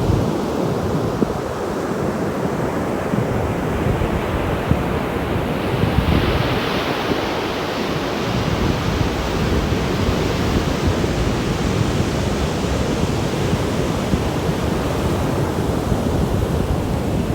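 Ocean waves breaking and washing ashore in steady surf, with wind buffeting the microphone. The hiss of breaking surf swells about six seconds in and carries on.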